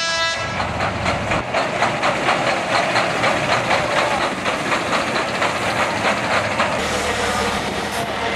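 Race truck's diesel engine running as it rolls slowly by, with a steady hiss and a fast rhythmic clatter. A brief pitched tone sounds at the very start.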